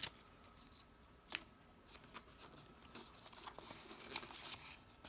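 Packaging of a lighter box being opened and handled by hand: light rustling of paper and card with a few sharp clicks and taps, the sharpest about four seconds in.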